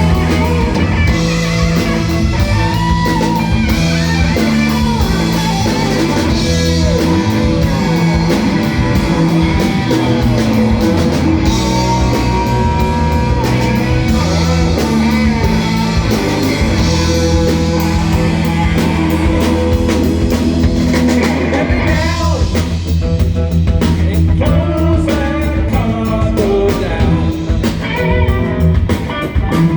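Live blues-rock band playing loudly: electric guitar, bass and drums, with a singer's voice.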